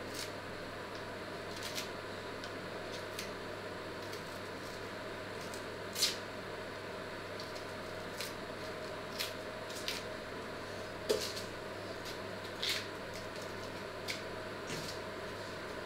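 Scattered small crackles and clicks of an onion being peeled by hand with a paring knife, the papery skin tearing and the blade ticking, over a steady low hum.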